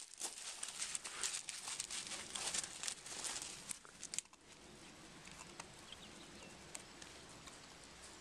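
Footsteps crunching on loose gravel, a quick uneven run of crunches that stops about four seconds in. After that there is a quieter steady outdoor hiss with a few faint clicks.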